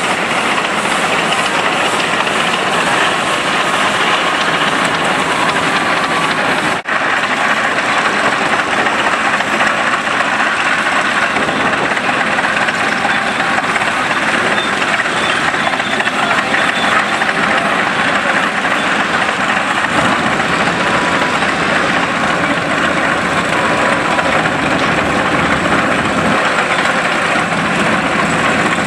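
Steady mechanical noise of vintage steam traction engines and an old tractor running as they roll past, with one brief drop about seven seconds in.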